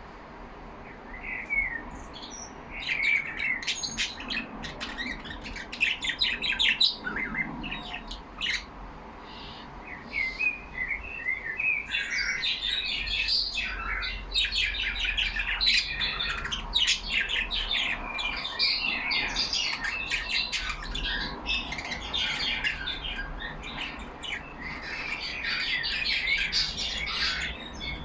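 Pet budgerigars chattering and warbling together: a continuous run of quick, high chirps and squawks that starts about a second in and grows busier partway through.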